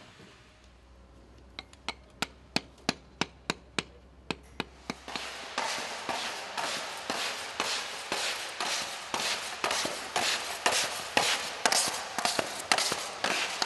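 Hammer tapping quickly, about three sharp taps a second, for a few seconds. Then, louder, a steady scraping noise runs with a regular knock about twice a second.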